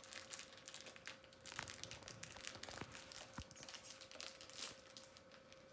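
Plastic snack wrapper being peeled and torn open by hand, a dense run of faint crinkles and crackles.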